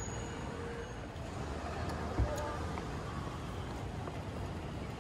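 Steady street traffic noise: a low rumble of passing vehicles, with one short thump about two seconds in.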